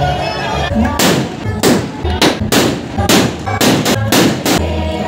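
Firecrackers going off on the street: a rapid, irregular run of loud bangs, several a second, starting about a second in, over music.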